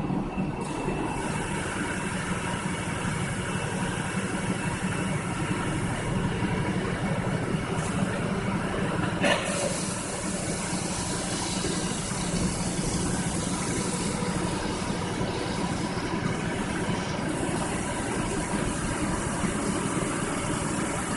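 Hyupshin Drill Master 5000 gantry drilling machine running with a steady hum, with the hiss of coolant streaming from the spindle onto the table. A single click about nine seconds in.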